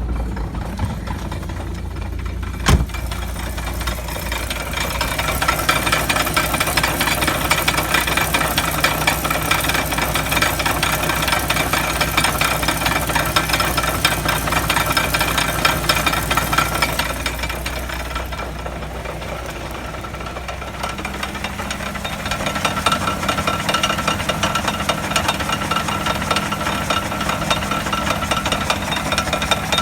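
Wheel hub bearing heard through an electronic mechanic's stethoscope as the wheel turns: a continuous dense grinding crackle with a faint steady whine, the abnormal noise of a failing bearing. A sharp click comes about three seconds in, and the sound dips and changes partway through.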